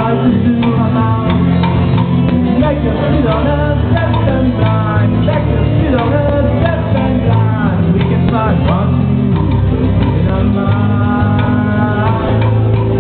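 Live rock band playing: electric and acoustic guitars, bass guitar and drum kit, with a melody line of bending notes over the steady low end.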